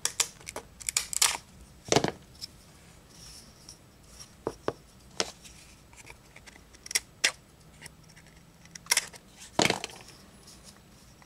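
Irregular sharp clicks and snaps of a Milescraft hand laminate trimmer, a plastic tool holding a single-edge razor blade, worked by hand along the edge of old, brittle wood veneer. The loudest clicks come about two seconds in and again near the end.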